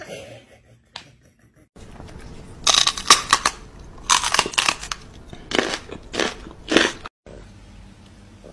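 A run of irregular crunching sounds, several sharp crunches over about five seconds, starting about two seconds in and stopping shortly before the end.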